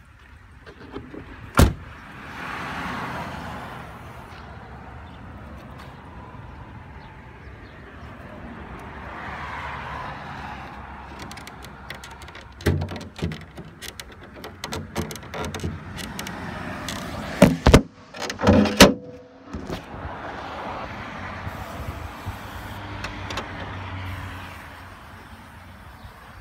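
An Opel Astra's door shut with a single sharp clunk about two seconds in. Later comes a run of small clicks and then two loud clunks, the bonnet latch being released and the bonnet lifted.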